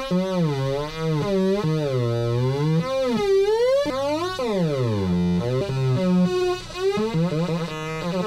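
Atari Punk Console, two 555 timer chips on a breadboard, played through a speaker. Its electronic tone glides up and down in pitch, and its low note drops and jumps in steps as the 50K and 100K potentiometers are turned.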